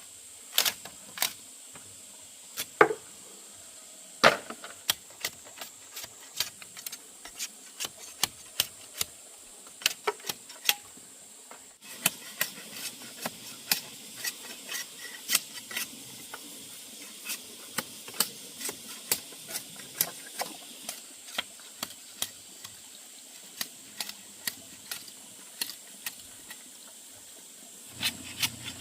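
Irregular sharp taps and clicks, several a second at times, over a steady faint high hiss.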